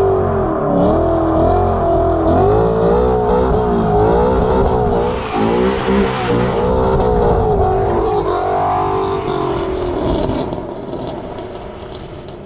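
Ford Mustang Boss 302's 5.0 V8 engine revving, its pitch climbing and dropping several times as it runs up and down the revs. The sound fades out near the end.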